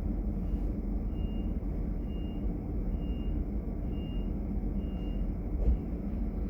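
Steady low rumble of a DB Class 425 S-Bahn electric multiple unit, with a door-closing warning of about six short high beeps, roughly one a second, followed by a single thump near the end.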